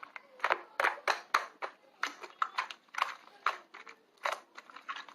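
Slime being pressed and squished by hand, making irregular sharp clicks and pops, about three a second.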